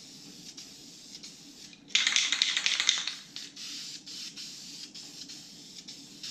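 Aerosol spray-paint can hissing as paint is sprayed onto metal: one strong burst of about a second, about two seconds in, then lighter, shorter sprays.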